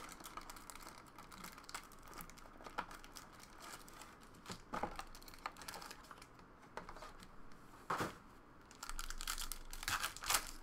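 Foil trading-card pack wrappers (2019-20 Panini Prizm Collegiate) crinkling as they are handled and torn open, in a run of short crackles. Louder rips and rustles come about five seconds in, about eight seconds in, and near the end.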